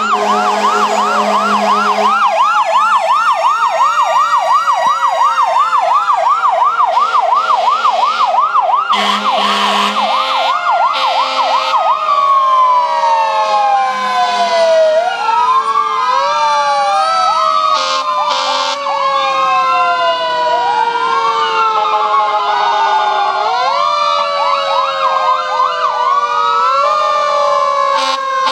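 Fire truck sirens: a fast yelp for about the first twelve seconds, then several wailing sirens rising and falling over one another. There are steady horn blasts near the start and again about nine seconds in.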